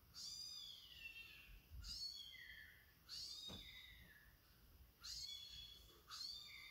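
A very young kitten mewing, played through laptop speakers: five high, thin cries, each falling in pitch, a second or two apart.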